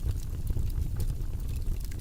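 Fire in a fireplace crackling: scattered sharp snaps and pops over a steady low rumble of the flames.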